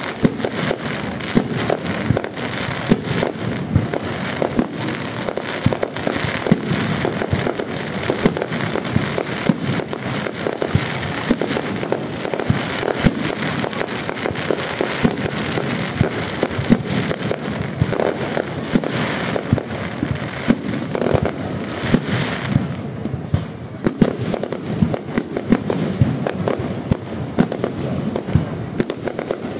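Aerial fireworks display: a dense, continuous run of shell bursts, bangs and crackle, with many short high whistles falling in pitch, most plainly in the last few seconds.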